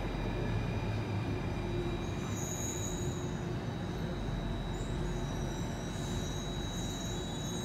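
Interior running noise of an Alstom C830 metro train slowing into a station: a steady rumble with a thin, steady high-pitched tone over it.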